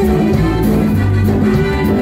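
Live band playing upbeat music, with electric guitar, bass and drums.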